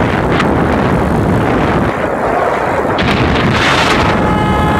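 Heavy wind buffeting on a phone microphone while riding in the open through traffic: a loud, rough rush. A steady high pitched tone joins near the end.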